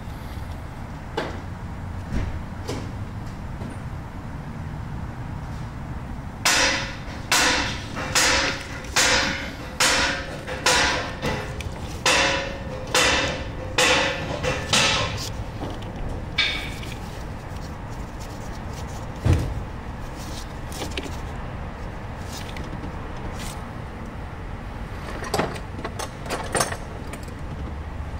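Hand tool working on the alternator's mounting hardware in the engine bay: a run of about sixteen sharp metallic strokes, about two a second with a short ring after each, lasting some eight seconds. After it come a few scattered knocks, one louder thud among them, over a steady low hum.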